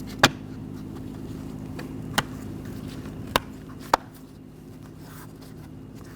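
Plastic window-switch bezel being pressed onto a car door armrest, clicking four times as its clips snap into place: once near the start, once about two seconds in, then two close together past the middle. A steady low hum runs underneath.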